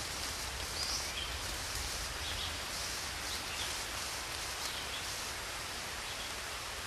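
Steady rushing outdoor ambience with short, high bird chirps scattered through it about once a second.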